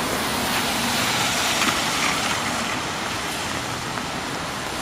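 Steady rain on a wet street: an even hiss of falling and splashing water, swelling slightly in the first couple of seconds.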